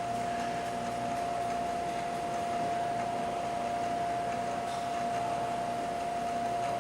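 Bridgeport Interact I three-axis CNC vertical milling machine running a program in automatic mode: a steady, even whine over a mechanical hum.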